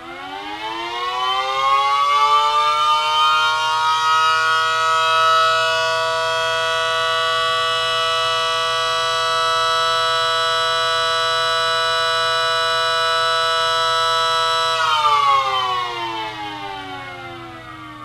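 Miniature 3D-printed SD10 tornado siren winding up from a standstill with rising pitch, then holding a steady chord of several tones. After about fifteen seconds it cuts power and winds down with falling pitch.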